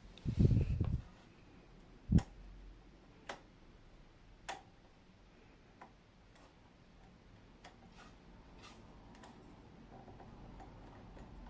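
Irregular ticks and knocks from a Pelonis oil-filled radiator heater. A dull thump comes just after the start and a sharp knock about two seconds in, then single ticks at uneven gaps that grow fainter.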